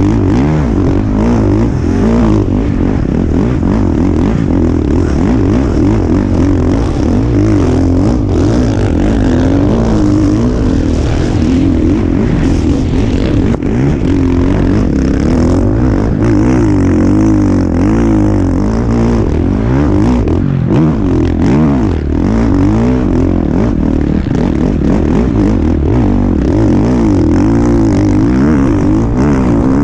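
Husqvarna motocross bike's engine revving hard, its pitch rising and falling over and over as the rider opens and shuts the throttle through the ruts and shifts gears.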